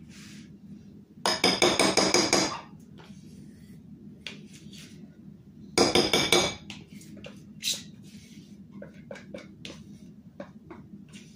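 A spoon scraping and knocking mascarpone cheese out of its tub into a mixing bowl: two bursts of rapid clattering, about a second in and about six seconds in, then a few lighter taps.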